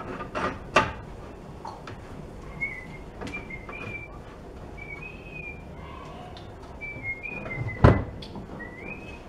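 A string of short, high whistled chirps that slide up and down, with a few sharp knocks early on and one loud thump about eight seconds in from handling at a table saw that is not running.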